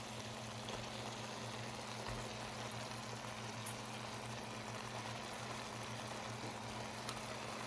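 Beef and onions sizzling softly in a pot on the stove, a steady hiss over a low constant hum, with a couple of faint clicks.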